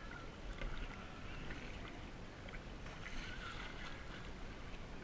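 Kayak paddling: the paddle blades dipping and water splashing and lapping against the plastic hull, steady with a few small splashes.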